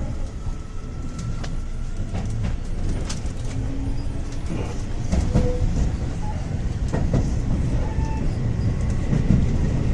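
Train interior ambience: a steady low rumble of a train running on the rails, with scattered clicks and knocks from the wheels and carriage, and a few brief faint squeaks.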